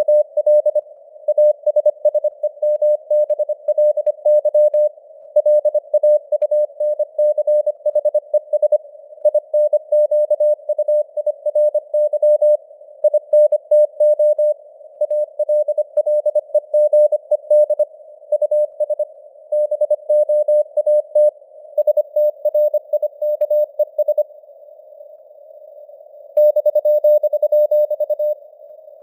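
Morse code (CW) sent at 25 words per minute: a single mid-pitched tone keyed on and off in quick dots and dashes, over narrow-band receiver hiss that simulates a radio signal, with its strength fading up and down (QSB). There is a pause of about two seconds near the end.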